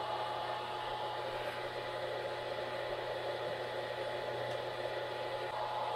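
A switch-mode bench power supply's cooling fan running at full speed, a steady rush of air with a thin steady tone through it. The fan stays at top speed even with little or no load, which the owner suspects is not right.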